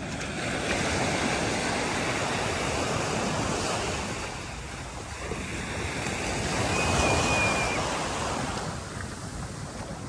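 Surf washing onto a sandy beach, swelling twice, about a second in and again around seven seconds, with some wind noise on the microphone.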